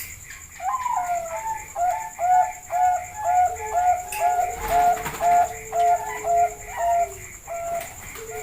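Zebra dove (Bangkok perkutut) cooing: one longer opening note, then a quick run of short, evenly spaced coos, about two a second.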